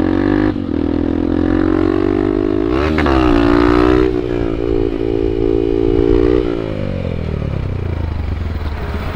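Honda Bros 150's single-cylinder four-stroke engine running under throttle. About three seconds in it revs up sharply as the bike is pulled up into a wheelie, holds the higher revs for a few seconds, then the revs fall away.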